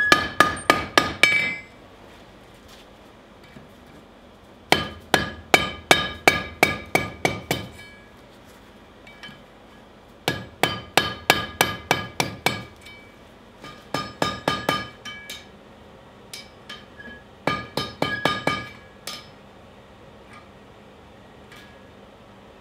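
Hand hammer striking red-hot steel on a steel anvil's horn, rounding the ring of a bottle opener. The blows come in bursts of about three a second, each burst one to three seconds long with a pause of a few seconds between, and the anvil rings after each strike. A few lighter single taps follow the last burst.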